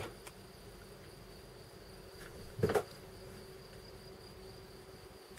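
Quiet room tone with a faint, steady high-pitched whine, broken once about two and a half seconds in by a short, dull knock.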